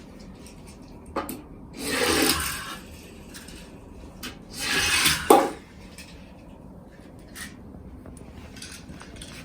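Small plastic and die-cast toy cars being handled and scraped against their plastic packaging: two rubbing swells of about a second each, with a few light clicks and a sharper click about five seconds in.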